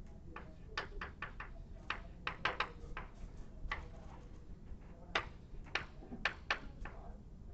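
Chalk tapping on a blackboard while an equation is written: an irregular run of short, sharp taps, several a second.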